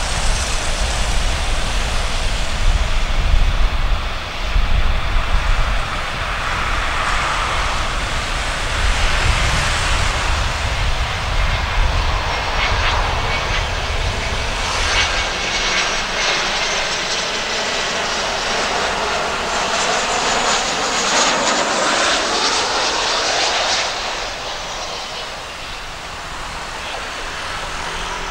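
Boeing 737-300 jet landing: its CFM56-3 turbofan engines whine as it passes low overhead, the pitch gliding downward as it goes by. The sound fades near the end as it rolls out along the runway.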